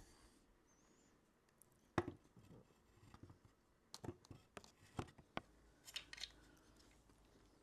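Scattered light clicks and knocks of plastic fairing panels and small screws being handled and fitted to a motorcycle's front; the sharpest knock comes about two seconds in, with a cluster of taps over the next few seconds.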